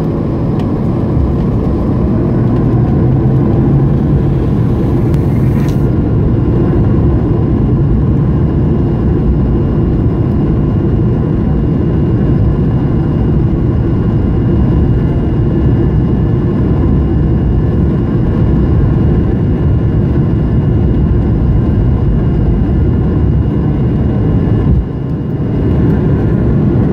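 Airbus A220-100's Pratt & Whitney PW1500G geared turbofans at takeoff thrust during the takeoff roll, a loud, steady low roar heard inside the passenger cabin. A thin steady high whine joins about six seconds in, and the roar dips briefly near the end.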